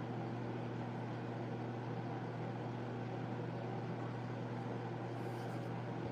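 Steady low electrical hum, like a running appliance motor, holding one even pitch throughout, with a few faint light ticks near the end.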